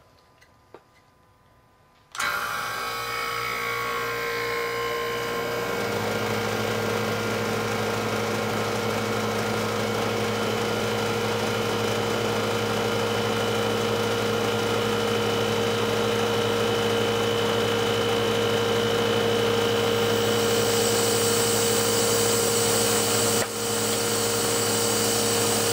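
Refrigeration condensing unit's hermetic compressor, run as an air compressor, starting up suddenly about two seconds in and then running steadily with a constant hum. Lower tones build in a few seconds after start-up, and a higher hiss joins near the end.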